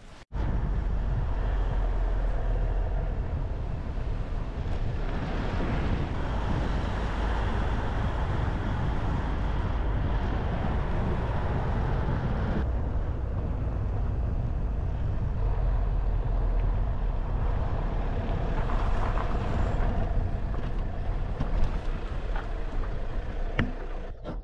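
Car driving along a road: a steady rush of engine, tyre and wind noise with a heavy low rumble. It changes abruptly twice, at about half way and again later, as the shots are cut together.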